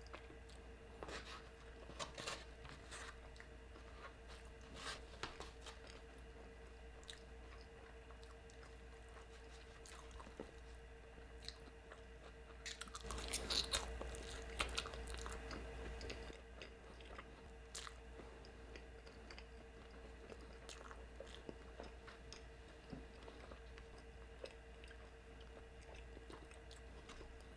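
Close-miked chewing of thick carne asada fries topped with melted cheese: soft crunches and wet mouth clicks scattered throughout, with a louder stretch about halfway through. A faint steady hum sits underneath.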